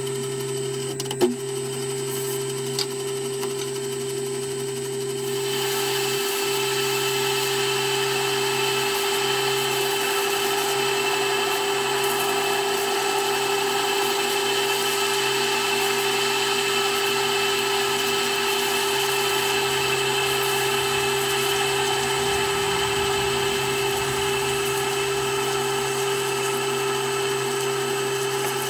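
Metal lathe starting up and running steadily with a constant hum. About five seconds in, a drill begins cutting into the end of the spinning bar, adding a steady hiss.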